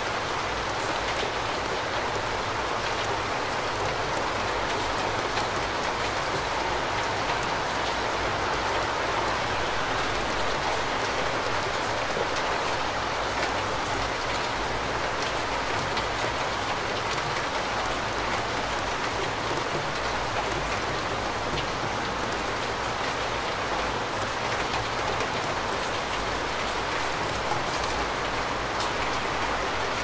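Steady rain falling, an even, unbroken hiss of many drops with no change in strength.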